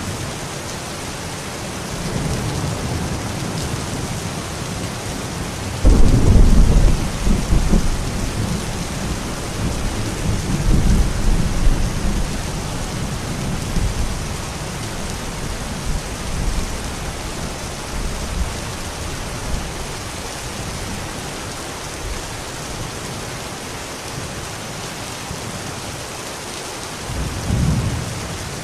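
Steady heavy rain hissing throughout, with a sudden loud thunderclap about six seconds in that rolls on as a rumble for several seconds, and a shorter roll of thunder near the end.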